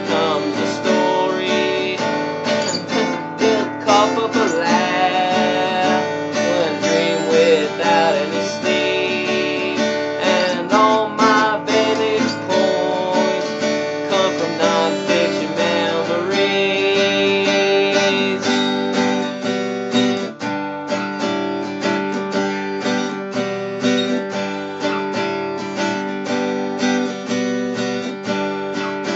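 Acoustic guitar music with strummed chords, playing continuously.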